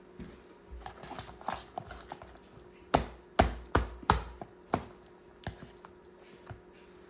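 Utensil clicking and tapping against a container while eating a chopped salad: scattered light clicks at first, then a run of five loud sharp taps in quick succession about three to five seconds in, then a few softer ones.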